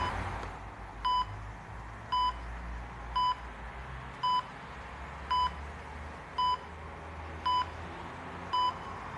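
Electronic beep repeating evenly, a short high tone about once a second, eight times, over a low steady hum.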